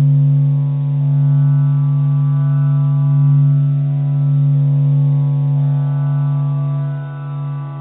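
A steady, low-pitched droning tone with many overtones, held without a break. Its upper overtones shift now and then and its loudness swells and eases gently.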